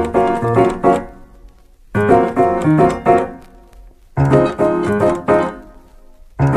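Music: a piano plays short chord phrases in four bursts, each about a second long, starting roughly every two seconds, with the notes dying away in between.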